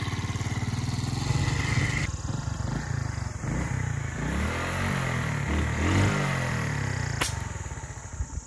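Small commuter motorcycle riding off over a rough dirt track, its engine rising and falling in pitch with the throttle under the load of two riders and luggage. It fades as it pulls away near the end.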